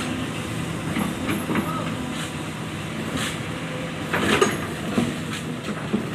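Excavator at work loading a dump truck: a diesel engine running steadily, with sharp knocks and clatters several times from the digging and loading, the loudest a little past four seconds in.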